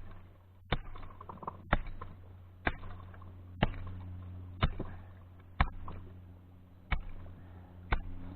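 Axe chopping creek ice: eight sharp strikes about a second apart.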